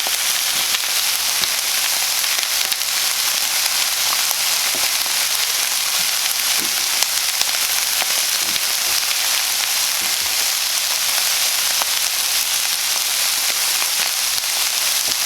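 Chicken breasts frying in a pan, a steady sizzle with small scattered pops and crackles.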